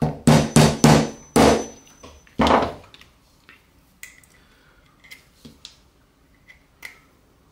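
A claw hammer striking the end of a screwdriver used as a pin punch, knocking the retaining pins out of a gas airsoft pistol magazine: about six sharp strikes in the first three seconds, each with a short ring. After that come a few faint clicks as the magazine is handled.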